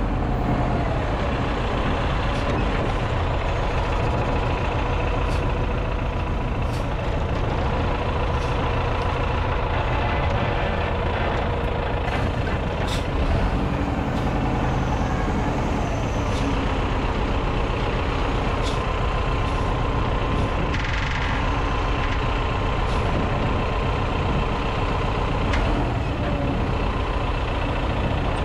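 A motor or engine running steadily, with a continuous low rumble and a few faint clicks and knocks scattered through it.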